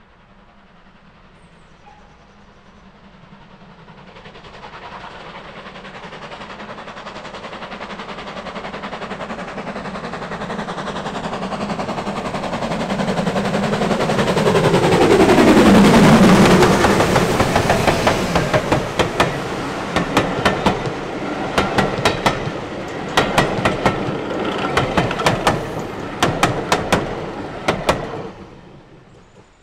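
A steam train double-headed by a BR Standard 2MT and an LMS Jubilee 4-6-0 approaches and passes. The sound builds over about fifteen seconds and falls in pitch as the locomotives go by, then the carriage wheels clatter over the rail joints in sharp regular clicks for about ten seconds before the sound fades quickly.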